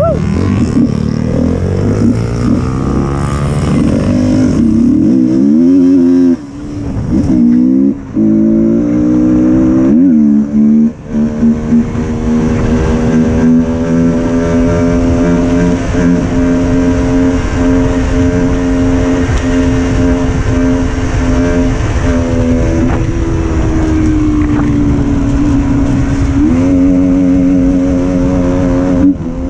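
KTM Duke 200's single-cylinder four-stroke engine under way, revving up and breaking off briefly several times in the first eleven seconds as it changes gear, then running at a steady pitch at cruising speed, with small rises and falls in revs near the end.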